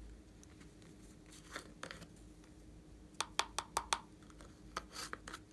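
Small plastic glitter bottle being uncapped and shaken out over slime: light plastic clicks and taps, with a quick run of about five sharp clicks about three seconds in and a few softer rattling clicks near the end.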